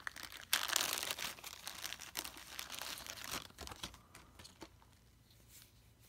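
Plastic zipper bag crinkling as an action figure is pulled out of it. The crackling starts about half a second in, is loudest for the next couple of seconds and dies away after about four seconds.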